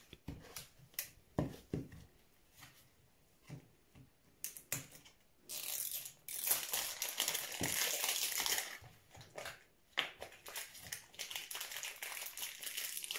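Crinkling and rustling of a small foil-and-plastic toy wrapper being opened by hand, among scattered clicks and taps of a plastic toy ball being handled and popped open.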